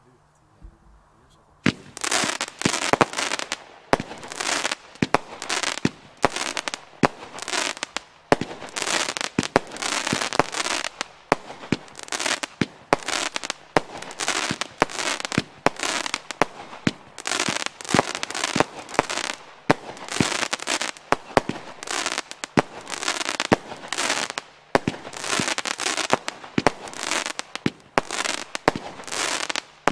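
Lesli "Gatekeeper" 64-shot 20 mm fireworks battery firing, starting a little under two seconds in: shot after shot, about two a second, each launch followed by a burst of crackling stars.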